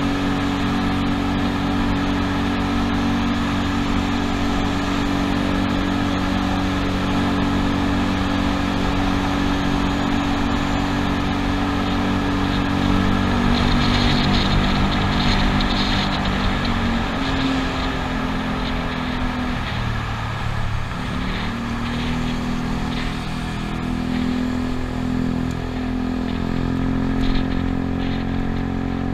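Yamaha Cygnus 125 cc single-cylinder scooter engine running steadily at cruising speed, with wind and road noise, echoing in a road tunnel. About two-thirds of the way through, the engine note drops briefly and then picks up again as the ride leaves the tunnel.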